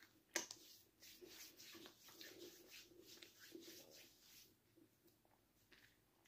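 Near silence, with faint chewing and small mouth clicks from someone eating garlic bread; one slightly louder click comes about half a second in.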